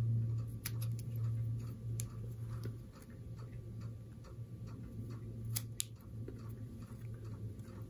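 Small fly-tying scissors snipping foam: a few light clicks, with two sharper snips close together a bit past halfway, over a low hum that fades after the first few seconds.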